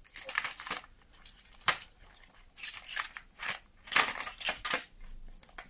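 Rubber piston seal in a car tyre inflator's small pump cylinder rubbing and hissing against the cylinder wall as the piston is worked by hand. It comes as about half a dozen short scraping strokes at uneven spacing.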